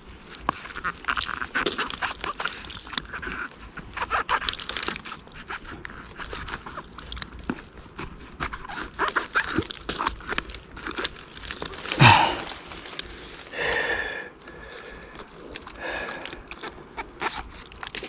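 Wild oyster mushrooms being pulled and broken off a tree by hand, with irregular crackling, snapping and rustling. About twelve seconds in, a short loud sound slides down in pitch, followed by a brief pitched sound.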